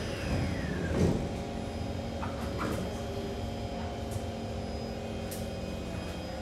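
Cabin sound inside a Kawasaki C151 metro train: a steady hum, a whine falling in pitch over the first second and a half, a sharp thud about a second in, and a few light clicks.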